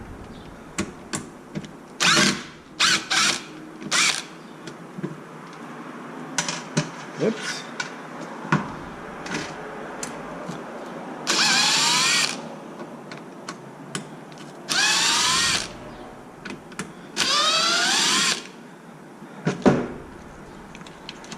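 Electric power driver spinning bolts out of an RC truck's rear differential cover: a few short trigger bursts, then three longer runs of about a second each, each with a whine that rises as the motor speeds up, and small clicks of parts being handled in between.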